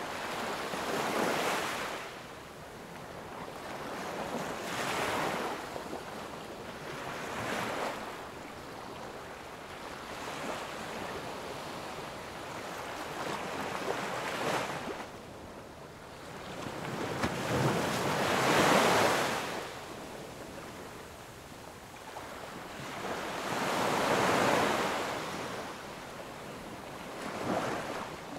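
Small sea waves breaking and washing up a sandy beach, the surf hiss swelling and fading every few seconds, loudest about two-thirds of the way through. Some wind on the microphone.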